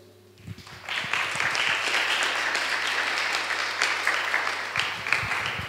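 Audience applauding. The clapping builds up about half a second in, holds steady, and tapers off near the end.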